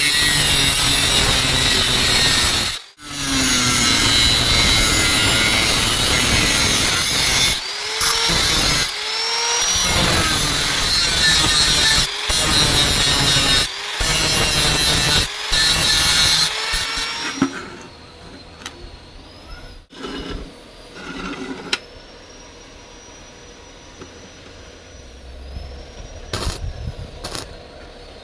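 Angle grinder working steel tube: loud grinding in long stretches broken by brief stops. About 17 seconds in it goes much quieter, leaving a faint whine that rises and falls.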